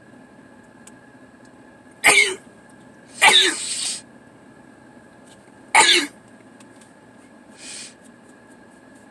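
A person sneezing three times in quick succession. Each sneeze is a sharp, loud burst, and the second one is drawn out. A faint rush of breath follows near the end.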